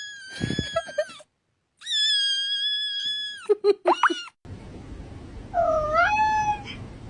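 Cats meowing in a string of short clips. Two long, high-pitched meows are held steady, followed by a few short chirps, then a lower meow that dips and rises.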